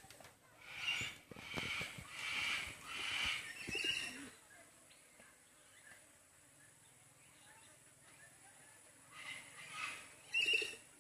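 A bird calling: a quick series of about five high calls in the first four seconds, then two more calls near the end.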